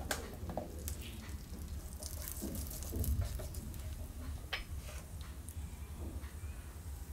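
Cumin seeds and a bay leaf frying in hot oil in a non-stick pan: a light crackle with scattered small pops, stirred with a wooden spatula, over a low steady hum.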